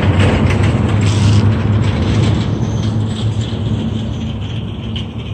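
A motor running steadily with a low hum, under a rattling, hissing noise that dies down about halfway through.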